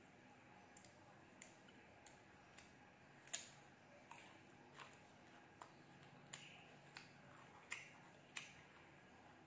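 Crunchy bites and close chewing of young ambarella (cóc) fruit dipped in chili salt: a sharp crunch a little past a third of the way in, then crisp chewing clicks about every two-thirds of a second.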